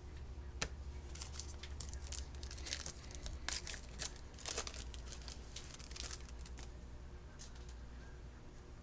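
A foil trading-card pack wrapper being torn open and crinkled: a run of crackling rips over several seconds, loudest about halfway through, after a sharp click about half a second in.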